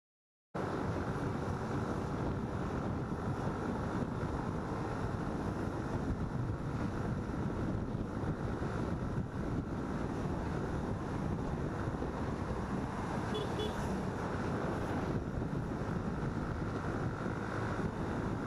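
Wind rushing over the microphone of a moving motorcycle, with steady engine and road noise underneath; it starts about half a second in.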